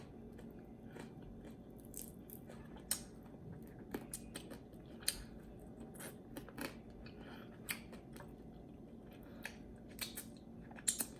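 Close-up chewing and biting of crispy chicken wings: irregular small crunches and clicks, with a few sharper crunches near the end.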